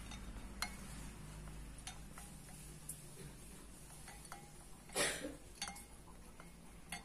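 Spoon clinking faintly against a glass a few times, each click with a short ring. A brief, louder rustle about five seconds in.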